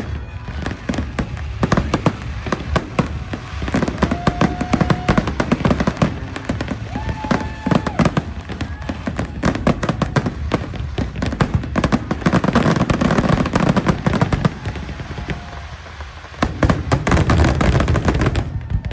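Fireworks display: a dense, continuous barrage of bangs and crackling bursts, with a few short held tones over it around the middle, ending abruptly just before the end.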